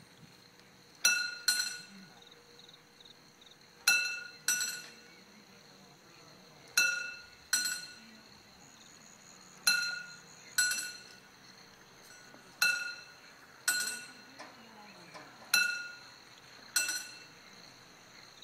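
Level-crossing warning bells ringing as the crossing barriers lower: pairs of struck bell tones about every three seconds, each ringing on and fading, with the second strike of each pair drifting further behind the first.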